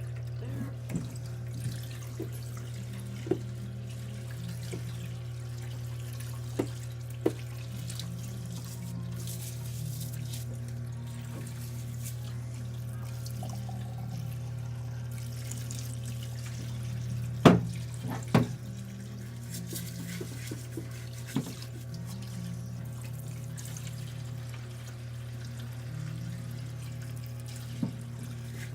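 Water running from a tap into a sink, with a steady low hum, while an oil filter's parts are washed. Scattered knocks of the parts being handled; the two loudest come close together a little past the middle.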